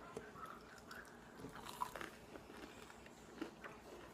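Faint chewing of Doritos Loaded bites close to the microphone: scattered soft crunches and mouth clicks, with a slightly louder click about two seconds in and another near the end.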